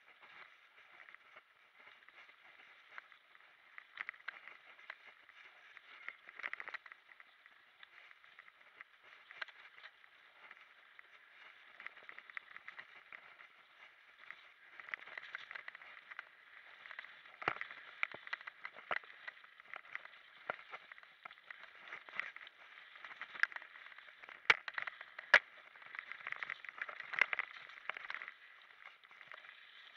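Mountain bike ridden fast down a dirt singletrack: a steady muffled rush of tyres and wind, with sharp clacks and knocks as the bike rattles over roots and stones, coming thicker and louder in the second half.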